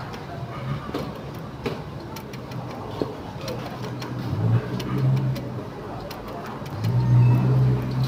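Scattered light plastic clicks and taps from hands handling and refitting the printer's side gear assembly, over a steady low hum that swells about four and a half seconds in and again near the end.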